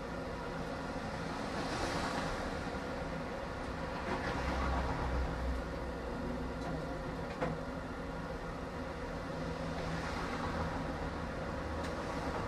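Tram running along the track, heard from the driver's cab: a steady rumble and hum, with one sharp click about two thirds of the way through.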